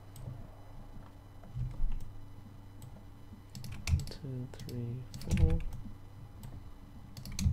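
Computer keyboard keystrokes: a few sharp clacks a second or more apart, over a low steady hum.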